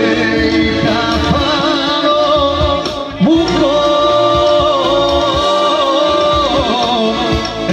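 Live Serbian kafana-style folk music on an arranger keyboard, with a programmed beat and bass under a held melody line with vibrato and ornaments: an instrumental interlude between sung verses. A new phrase starts about three seconds in.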